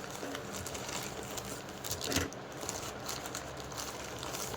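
Parcel packaging rustling and crinkling as it is handled and opened by hand, with a sharper crackle about two seconds in.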